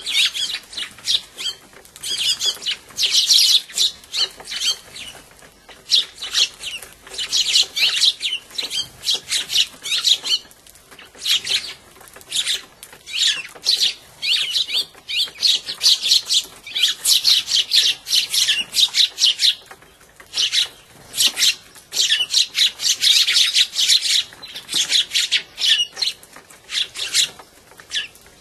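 A flock of Eurasian tree sparrows chirping, many short high chirps overlapping in busy bursts with brief lulls, as the birds squabble over seed at a feeder.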